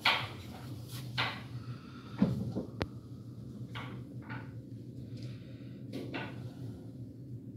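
Plastic storage drawers being handled: a series of short scrapes and knocks, with a sharp click about three seconds in, over a steady low hum.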